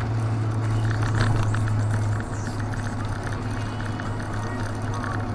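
Mazda MX-5 with a manual gearbox, heard from inside the cabin while it is driven on a wet road: a steady engine drone with tyre and road noise. The engine note eases a little about two seconds in.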